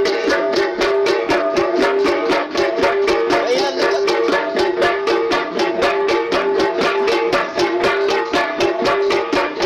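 Kalinga gangsa (flat gongs) played as an ensemble in a fast, even rhythm of about five strikes a second, several ringing pitches interlocking.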